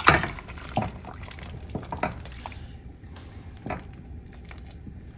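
A metal spoon stirring botwinka soup in a stainless steel pot: liquid sloshing, with a few clinks of the spoon against the pot, the loudest right at the start.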